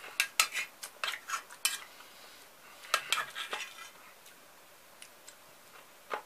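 A metal spoon clinking and scraping against an enamel pot while scooping up sliced cucumber salad. A run of quick clicks comes over the first two seconds, and another cluster about three seconds in.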